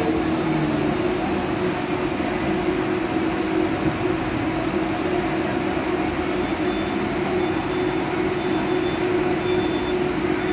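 A Danhai Light Rail tram stands at the station platform, its onboard equipment giving off a steady electrical hum. From about six seconds in, a short high beep repeats about once a second.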